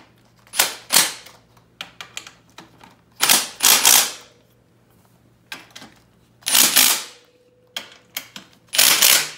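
Socket ratchet clicking in short bursts as the front bumper mounting bolts are run down, four sets of loud clicking with small knocks in between.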